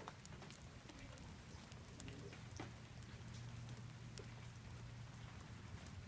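Light rain falling: a faint steady patter with scattered sharp drop ticks.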